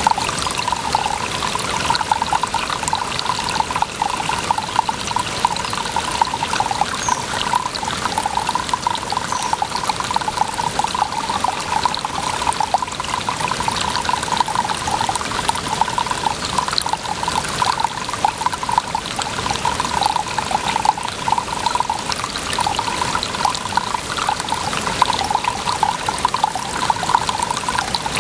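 Water pouring and trickling steadily, without a break.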